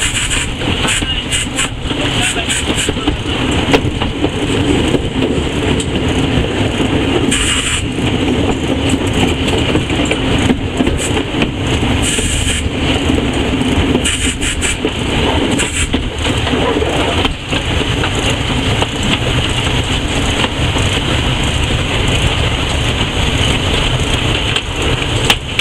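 Steam locomotive running under way, heard from the footplate: a loud, steady rumble and clatter of the engine and the wheels on the rails, with a few sharp knocks scattered through it.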